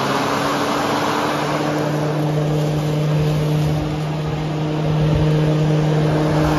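Makita DLM532 cordless lawn mower's electric blade motor running at a steady speed: an even hum over a rushing noise from the spinning blade.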